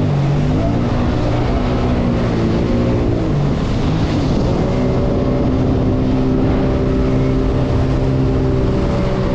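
Jet ski engine running under way, its revs rising and falling over the first few seconds, then held steady for the rest, with water rushing underneath.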